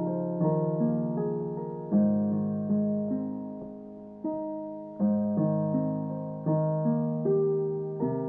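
Slow, gentle piano music: soft chords struck about once a second, each ringing and fading away.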